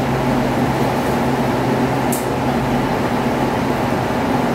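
Steady machine-like hum with a low drone, and one short light click about two seconds in.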